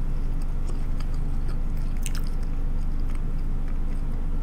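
Close-miked mouth sounds of a person chewing a mouthful of food, with a few soft wet clicks about two seconds in. A steady low hum runs beneath.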